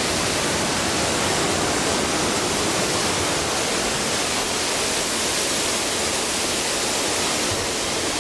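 Steady, loud rushing of a torrent of water pouring through the earthquake-simulation set's flood effect.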